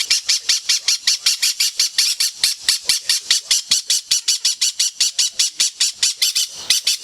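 Green-cheeked conure giving a long, fast run of short harsh chirps, about seven a second, evenly paced, stopping just before the end.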